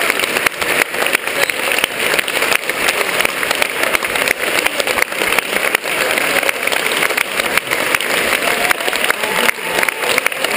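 Audience applauding, dense, steady clapping from a full house.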